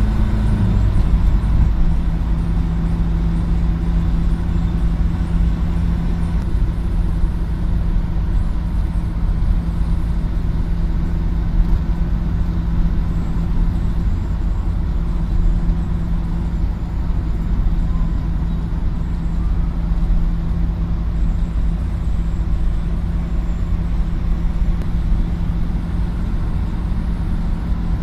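Steady low road and engine rumble inside a car cruising at highway speed, with a constant droning hum.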